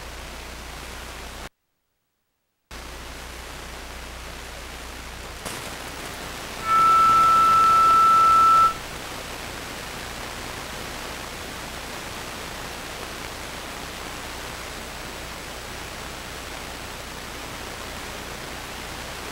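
Steady recording hiss with no speech. The hiss cuts out to dead silence for about a second near the start. A loud, steady, high electronic beep sounds for about two seconds around seven seconds in.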